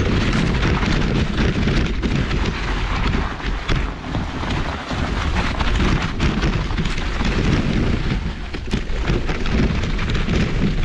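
Mountain bike ridden fast down a snowy forest trail: a steady rush of wind buffeting the microphone, with tyre rumble and frequent knocks and rattles from the bike over bumps.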